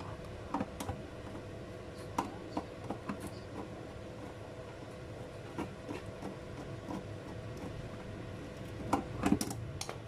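Light, scattered clicks and taps of a screwdriver working on the sheet-metal cover of a freezer's inverter PCB box, with a cluster of louder knocks near the end, over a faint steady hum.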